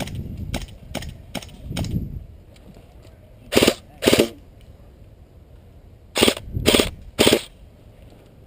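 Airsoft gunfire: a quick run of light shots about three a second for the first two seconds, then five louder shots, two together and three together, further on.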